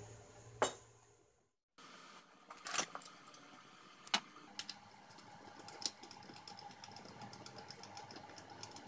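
Metal and wooden workshop parts being handled on a workbench: a few sharp clicks and knocks, then a faint steady whine with rapid light ticking behind them.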